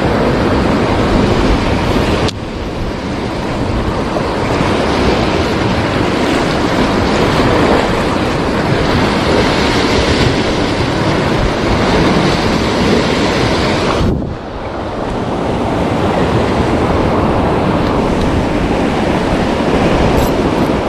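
Loud, continuous noise of big waves breaking against the shore, with wind buffeting the microphone. Twice, about two seconds in and about fourteen seconds in, the noise drops suddenly and then swells back up.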